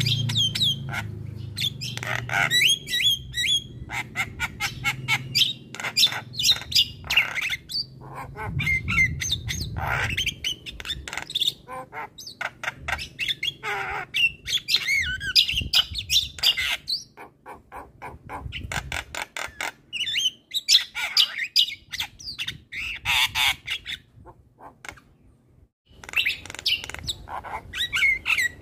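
Javan myna (jalak kebo) in full song: a fast, varied stream of chirps, whistles, harsh squawks and clicks. The song breaks off for about a second near the end, then starts again.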